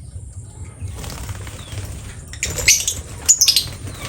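Lovebird's wings fluttering in short bursts, about two and a half and three and a half seconds in.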